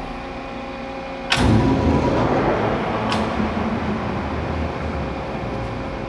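Large American Pacemaker 42" x 228" manual engine lathe: a steady motor hum, then about a second in the spindle is engaged with a sudden loud onset and the headstock gearing and big faceplate run, a dense rumbling mechanical noise that slowly eases. A short sharp click comes about three seconds in.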